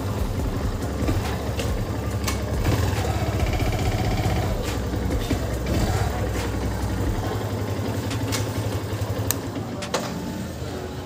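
Motorcycle engine idling with a steady low hum that drops away about seven seconds in, with a few sharp clicks along the way.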